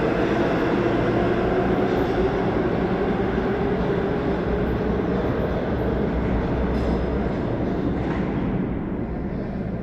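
R143 subway train departing and receding down the tunnel: a steady rumble of wheels on rail that fades over the last couple of seconds.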